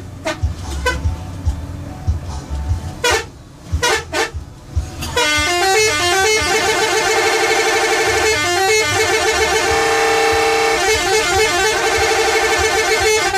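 Telolet multi-tone bus horn on a Bejeu bus: a few short toots, then from about five seconds in a continuous horn tune of stepping notes.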